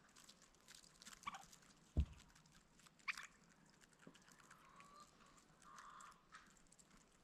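Farm poultry calling faintly in scattered short clucks and calls, with one sharp thump about two seconds in.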